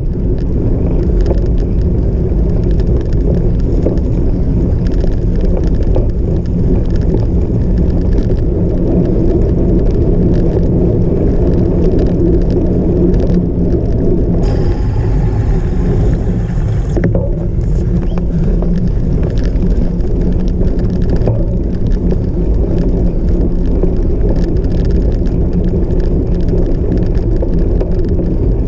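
Cyclocross bike ridden hard off-road: a steady loud rumble of tyres and frame over rough ground, scattered with small knocks and rattles. About halfway through, a harsher hiss comes in for a couple of seconds.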